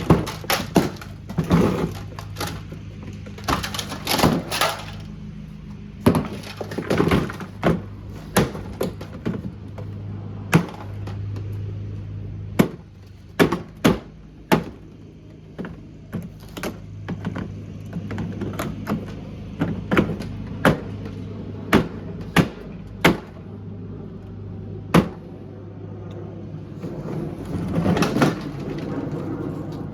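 A Kuppet portable washing machine being smashed apart: dozens of sharp, irregular blows and cracking crunches, some in quick clusters and others a second or more apart, over a steady low hum.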